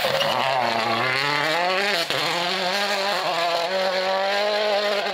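Toyota Yaris WRC rally car's 1.6-litre turbocharged four-cylinder engine accelerating hard out of a hairpin. The revs climb, break briefly about two seconds in at a gear change, then climb again and hold steady.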